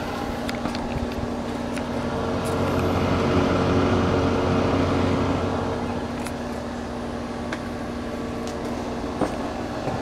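Patton utility space heater's fan running, a steady hum with rushing air; it grows a little louder midway, then fainter again.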